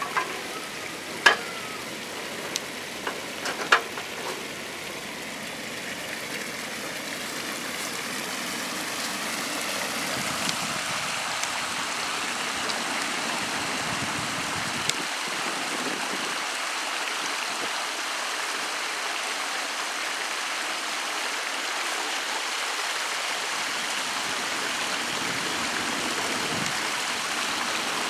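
Flowing water running over rocks: a steady rush that grows a little louder after several seconds. A few sharp clicks sound in the first few seconds.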